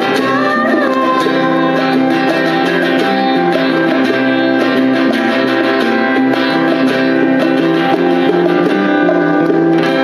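Band music with strummed guitar prominent and notes held steadily underneath, and a gliding melody line in the first second or so.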